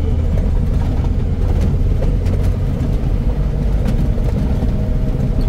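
Mercedes 1418 4x4 truck driving, its diesel engine running with a steady deep rumble and many small rattles and knocks over it.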